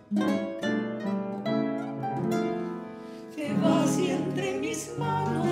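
Classical nylon-string guitar playing the accompaniment of a zamba in plucked notes and chords. A little over three seconds in, a woman's voice comes in singing over it.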